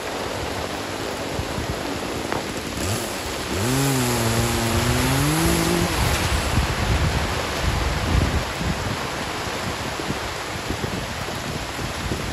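Steady rushing of a heavy rainstorm and gusting wind. About four seconds in, a low, wavering drawn-out tone lasts about two seconds.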